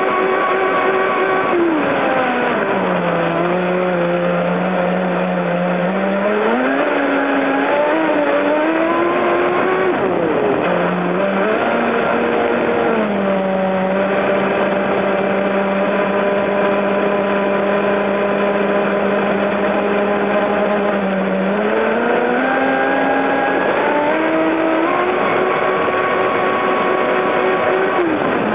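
Motor of an electric radio-controlled catamaran whining under way, heard from on board with the hiss of the water spray. The whine drops low a few seconds in, climbs back, holds steady and low through the middle, then rises again near the end.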